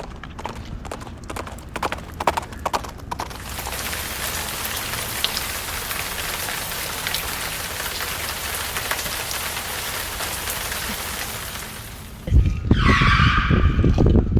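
Hand-made clip-clop of horse hooves for a few seconds, then a long steady patter of rain from a rain stick. Near the end, a sudden loud crash with a short high-pitched cry in it, a stage sound effect for a car crash.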